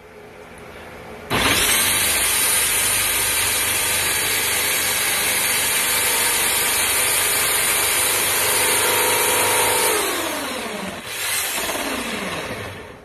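Bauer 1695E-B 13-amp corded right-angle drill boring through wood. It starts suddenly about a second in and runs steadily for about eight seconds, then winds down in falling pitch. A brief second run near the end winds down again.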